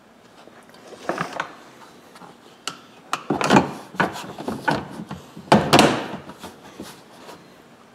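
Plastic front bumper fascia of a utility vehicle being pushed into place over the winch fairlead: a series of knocks and scraping rubs in several bursts, the two loudest about three and a half and five and a half seconds in.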